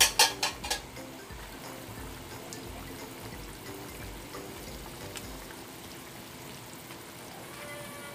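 Four quick sharp knocks at the start, then sweet and sour sauce bubbling in a frying pan as it is stirred with a wooden spatula.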